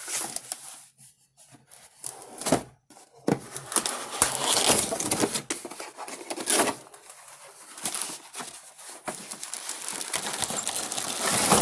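Packaging being handled while unboxing a plasma cutter's parts: irregular rustling and crinkling, with scattered clicks and knocks.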